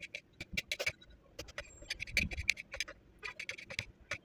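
Knife chopping pickles on a cutting board: quick, irregular runs of sharp taps with short pauses between them.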